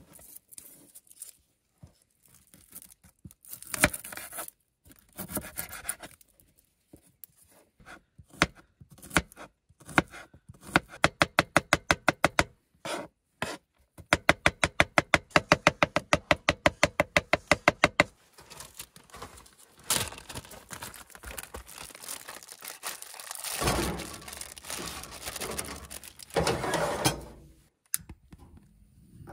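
Kitchen knife chopping a garlic clove on a wooden cutting board: quick runs of sharp taps, about five or six a second, with scattered knocks and scraping from handling the board and knife.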